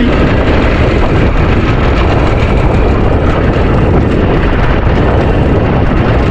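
Steady, loud noise of a small fishing boat under way in rough, windy weather: wind buffeting the microphone over the engine and rushing water.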